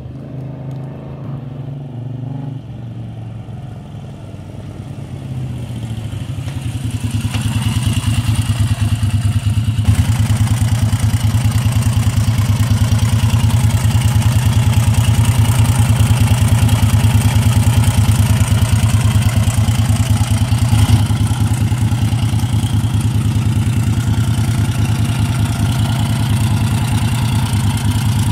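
1983 Moto Guzzi 850 Le Mans III's 844cc air-cooled 90-degree V-twin, first heard at a distance with its pitch changing as the bike is ridden along the street. It grows louder over a few seconds, then idles steadily close by with an even, rapid beat of firing pulses.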